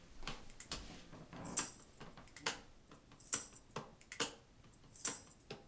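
Sparse percussion intro of a backing track: a steady beat of short, bright, jingling hits, a little more than one a second.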